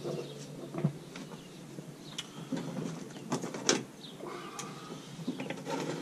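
Tool prying at the plastic housing of a Mini Cooper R53 gear-shifter assembly: scraping and handling noise with a handful of sharp clicks, the loudest just past halfway.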